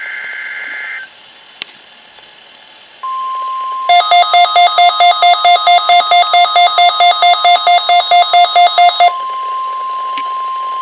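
NOAA Weather Radio test sequence over a weather radio receiver. About a second of warbling two-pitch data tones (a SAME digital header burst) comes first. After a moment of radio hiss, the steady warning alarm tone starts about three seconds in. A second later a weather-alert receiver's alarm beeps rapidly over it, about four or five beeps a second, for some five seconds, then stops while the steady tone carries on.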